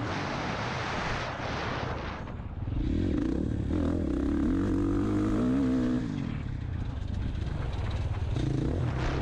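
Dirt bike engine heard from the rider's onboard camera, its pitch rising and falling as the throttle is worked through the corners. A rushing noise covers the first couple of seconds, and the engine is loudest from about three to six seconds in.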